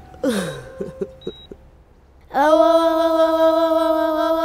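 Drama score music: a falling swoosh, a few short soft notes, then about halfway in a single held note comes in loud and stays steady.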